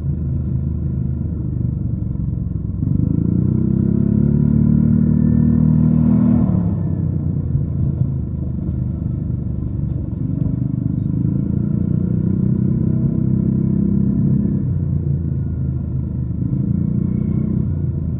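Yamaha NMAX 155 scooter's single-cylinder engine running through a DS4 Daeng Sai4 aftermarket muffler while riding. It pulls up louder under throttle three times: about three seconds in, about ten seconds in and near the end, easing back in between.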